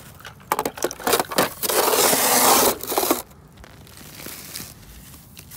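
Snow crunching and scraping under a gloved hand: a run of short crunches, then a louder, longer scrape lasting about a second.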